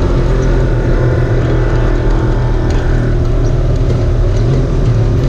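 Off-road vehicle's engine running steadily and loud, with a few faint clicks and rattles scattered through it.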